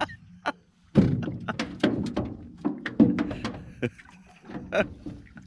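A run of irregular knocks and thuds on a small fishing boat, several a second, starting about a second in, as a hooked fish is reeled up beside the hull.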